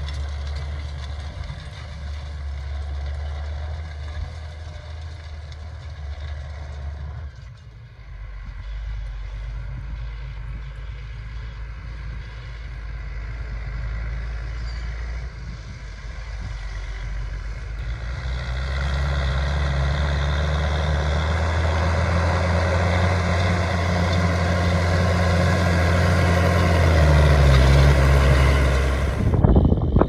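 Fendt 920 Vario TMS tractor's six-cylinder MAN diesel engine working under load while pulling a Horsch Joker disc harrow. The engine note is steady, grows louder through the second half, and cuts off sharply near the end.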